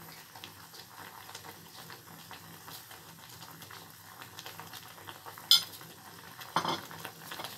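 Water in a stainless saucepan at a rolling boil with moringa leaves, bubbling and crackling steadily. A sharp clink about five and a half seconds in and a duller knock about a second later.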